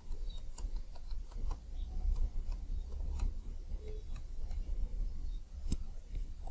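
Computer keyboard keys clicking as a password is typed: irregular light taps, a few a second, with one sharper key click near the end.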